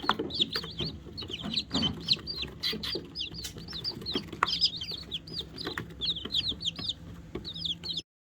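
Young chicks peeping: many rapid, high-pitched peeps overlapping one another, with a faint low hum underneath.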